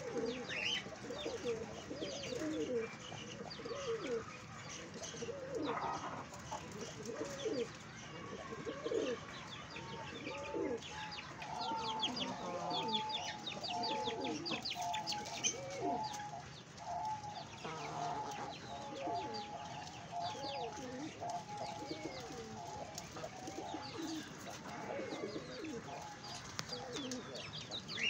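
Fancy pigeons cooing, many low coos overlapping one another throughout, with a run of quick higher chirping notes in the middle stretch.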